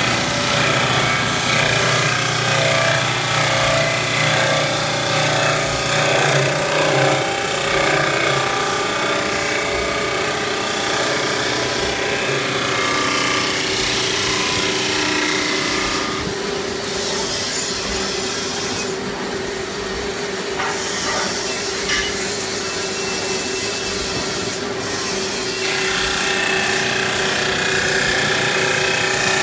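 SHMCF3022 wood lathe running, its carriage-mounted cutter shaving a spinning wooden blank into a turned spindle: a steady machine hum under continuous wood-cutting noise. The cutting eases a little for a few seconds past the middle, then picks up again.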